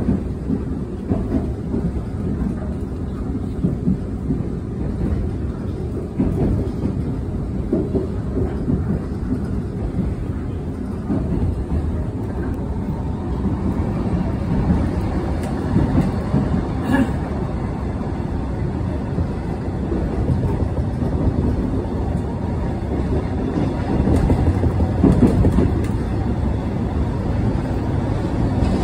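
Steady low rumble and rail noise of a Seoul Metro Line 1 train running, heard from inside the carriage, with one sharp click just past halfway.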